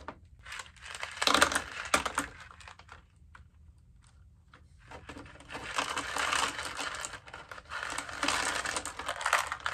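LECA expanded clay pebbles clattering and rattling as they are poured from one thin plastic pot into another around a plant's roots. A short rattle comes near the start, then a lull, then a longer run of clattering through the second half.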